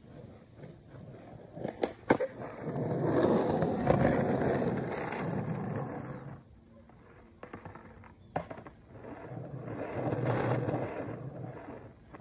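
Skateboard riding a bank: sharp clacks of the board about two seconds in, then the wheels rolling for about four seconds. A louder clack comes a little past the middle, followed by another few seconds of rolling.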